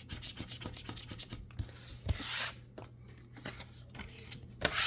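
A scratch-off lottery ticket being scratched: a quick run of short scraping strokes on the card, with a longer scrape about two seconds in.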